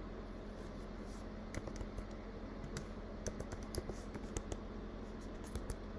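Computer keyboard typing: scattered, irregular keystroke clicks over a steady low electrical hum.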